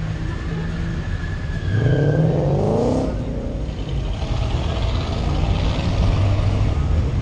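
Car engines running with a steady deep rumble, and one engine revving up about two seconds in, its pitch rising for about a second before it drops back.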